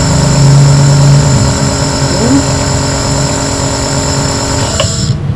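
Omron NE-C28 compressor nebulizer running with a loud, steady hum, then switched off about five seconds in, the hum stopping abruptly.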